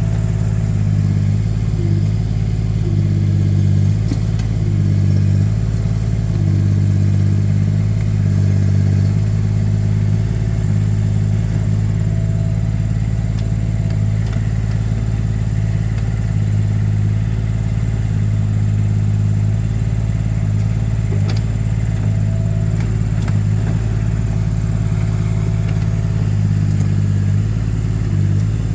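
Mini excavator engine running steadily, its note shifting back and forth repeatedly as the hydraulics are worked for digging, most in the first ten seconds or so and again near the end.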